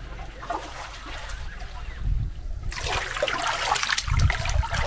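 Bare feet splashing and kicking in shallow sea water, starting a little under three seconds in, with a few low thuds.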